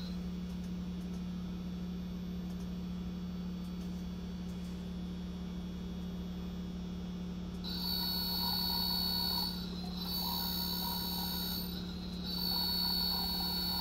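Mitsubishi HA-LH11K2 servo motor energized on the bench, giving a low steady electrical hum. From about eight seconds in, a high-pitched whine comes and goes in stretches of about two seconds.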